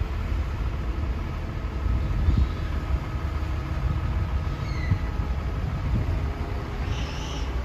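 Crane truck's engine running steadily under load, powering the truck-mounted hydraulic crane as it lifts a container.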